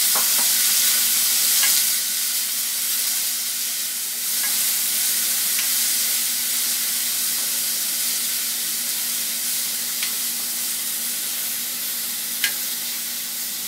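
Frozen green peas sizzling in hot oil in a non-stick kadhai while being stirred with a plastic spatula, a steady frying hiss that is a little louder in the first couple of seconds. A few light taps of the spatula against the pan.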